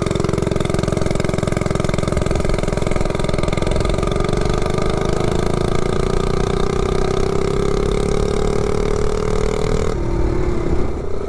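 Ungoverned 98cc Coleman 3 hp single-cylinder engine on a Rascal Lite minibike, held at full throttle through a 0–30 mph run. Its note climbs slowly and steadily as the bike gathers speed on the taller 70-tooth rear sprocket. About ten seconds in the throttle closes and the pitch drops, with wind rushing over the microphone.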